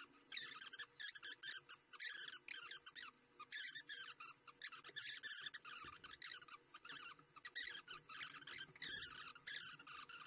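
Many short, high-pitched squeaking chirps in quick succession, mostly falling in pitch, with brief gaps between runs.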